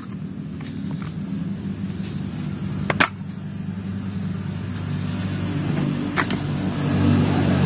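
A motor engine running steadily with a low hum that grows louder near the end, with two sharp clicks of hard plastic toys being handled, about three seconds apart.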